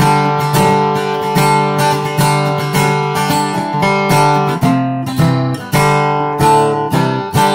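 Acoustic dreadnought guitar strummed with a Chicken Pick in a steady rhythm, about two strokes a second, with the chords changing about midway.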